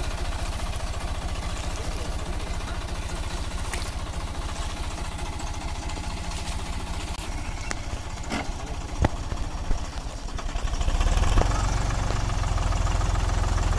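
Deutz-Fahr 50 hp tractor's diesel engine running steadily under load as the tractor crawls through deep paddy mud. A few sharp knocks come about nine seconds in, and a moment later the engine runs noticeably louder.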